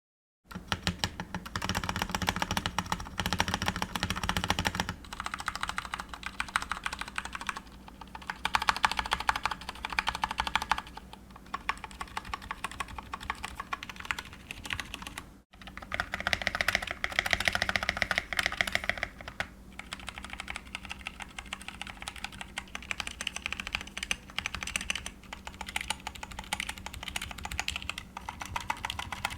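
Fast typing on a Dareu A87 mechanical keyboard with Cherry MX Brown tactile switches: a dense, steady stream of key clicks that breaks off briefly about halfway.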